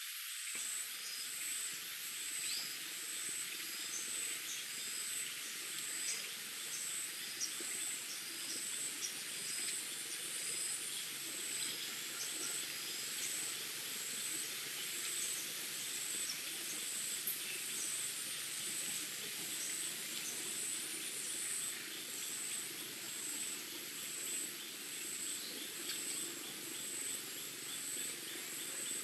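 Forest ambience: insects trilling steadily at a high pitch, with short bird chirps scattered through it, mostly in the first half.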